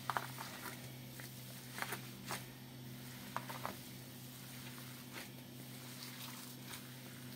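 Bare hands kneading a fatty, spiced minced-meat sucuk mixture in a bowl: soft, irregular squelches and wet smacks. A steady low hum runs underneath.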